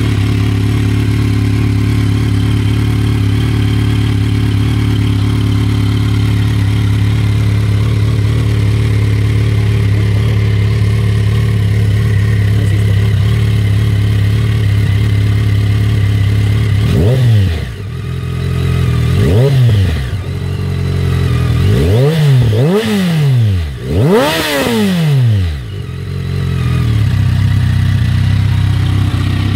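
2012 BMW K1300R's 1,293 cc inline-four idling through a full-system Akrapovic titanium exhaust, then revved in five quick throttle blips from about halfway through, the last the highest, before settling back to idle.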